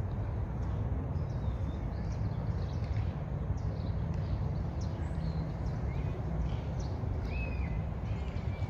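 Steady low outdoor rumble, with faint, short bird chirps scattered through it and one clearer call near the end.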